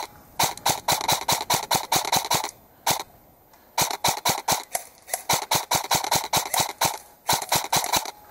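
Airsoft electric rifle firing rapid strings of shots, about seven a second, in four bursts with short pauses between them.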